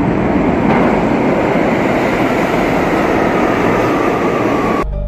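Subway train pulling into the station: a loud rumble with a faint whine that falls slowly in pitch as the train slows. It cuts off abruptly near the end.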